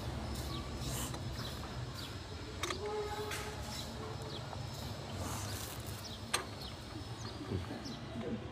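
Birds chirping in the background, with a few sharp metallic clicks of hand tools against the engine, the loudest about six seconds in, over a steady low rumble.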